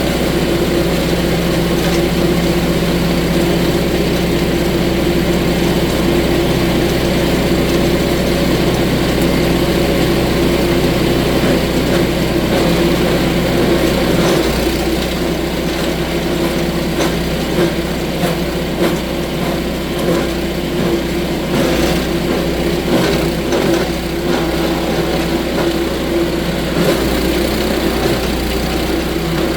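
Belt-driven wood chipper's gas engine running steadily. About halfway through, the low part of the sound turns uneven and fluctuating while the chipper is jamming and its drive belt is smoking.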